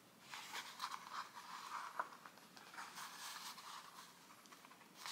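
Faint, intermittent scratching and rustling of sewing thread being pulled and handled over a paper signature while hand-sewing a book, with one small tick about two seconds in.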